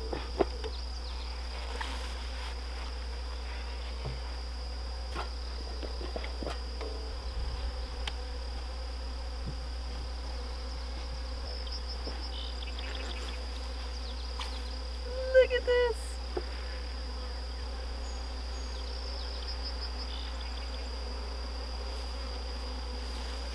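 Honeybees buzzing steadily around an opened wooden hive, with a few sharp knocks of the hive's wooden parts being handled near the start. About fifteen seconds in comes a brief louder pitched sound.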